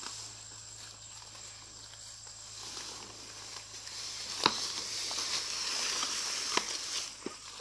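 Large banana leaves rustling and brushing through undergrowth as they are handled and carried, growing louder about halfway through. A few sharp snaps come through the rustling, the loudest about four and a half seconds in.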